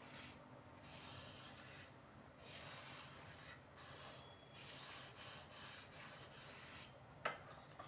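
Wooden spatula rubbing and pressing a paratha as it dry-roasts, without oil, in a nonstick frying pan: faint, repeated scraping swishes about once a second, with a sharp tap near the end.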